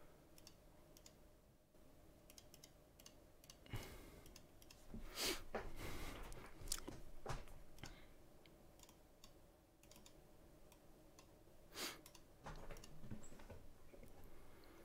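Faint, irregular clicks of a computer mouse, bunched about four seconds in and again near the end, over a faint steady hum.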